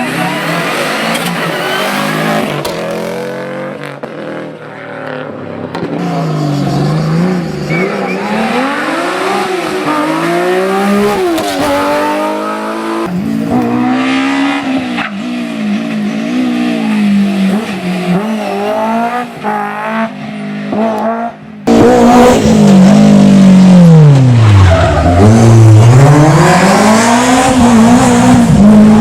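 Historic rally cars at full attack on a closed stage, engines revving hard, with pitch climbing through each gear and dropping at gear changes and braking. The sound changes abruptly a few times as different cars take over. From a little past two-thirds through, a louder car's engine note falls steeply and then climbs again as it brakes, downshifts and accelerates away.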